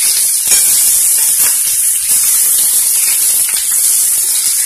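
Chopped mixed vegetables sizzling in oil in a kadai as they are sautéed, a steady frying hiss with a few faint scrapes of the spatula.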